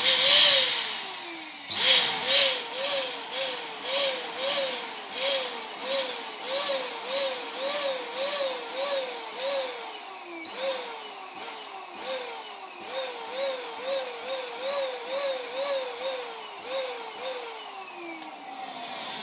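Electric balloon pump running as it blows up an 18-inch balloon: a motor whir with a whine that wavers up and down about twice a second and now and then slides down in pitch for about a second.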